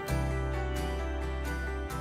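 Background music of held, sustained chords, with no voice over it.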